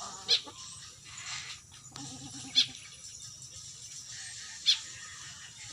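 A jalak (starling) giving three short, sharp, high calls about two seconds apart, with a brief pulsing bleat-like call just before the second one.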